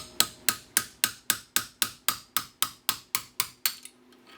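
A hammer striking a metal punch, made from a carved-down bolt, in quick steady taps of about four a second, driving the center spacer and bushing out of a John Deere 200 series mower deck spindle housing. The taps stop shortly before the end.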